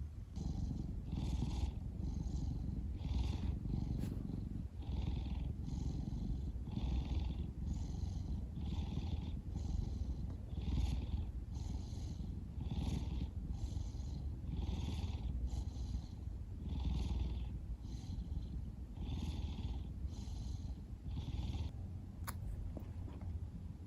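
Domestic cat purring: a continuous low rumble with a breathy swell about once a second as it breathes in and out, and a single sharp click near the end.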